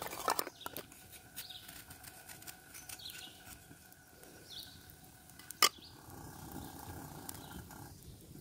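Birds chirping in the background, with a single sharp click or knock about five and a half seconds in.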